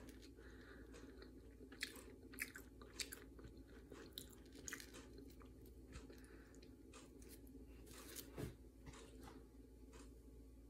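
Faint handling noise over quiet room hum: scattered small clicks and crackles from fingers turning a rose quartz pendant and its chain, with one slightly louder click near the end.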